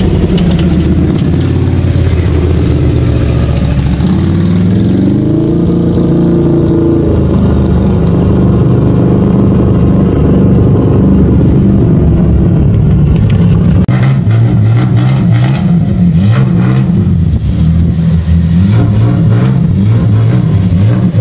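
Quad bike (ATV) engines running and revving as they ride past, the engine note rising and falling.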